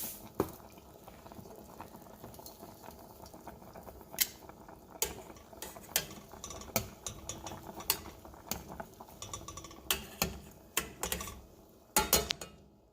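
A utensil clinking and scraping against a cooking pan while stirring, in irregular knocks and clicks, with a few louder knocks near the end.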